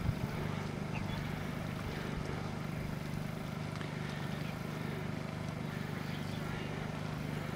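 A steady low mechanical hum, like an engine running evenly at a constant pitch.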